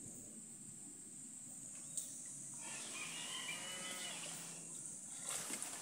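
A faint, drawn-out animal call at a steady pitch, lasting about two seconds and starting about three seconds in, over a constant high hiss.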